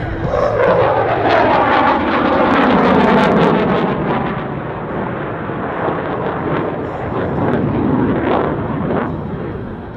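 CF-18 Hornet fighter jet's twin F404 engines passing by: a whine falling steeply in pitch as it goes past, loudest about three seconds in, then a steady, slightly quieter jet roar as it moves away.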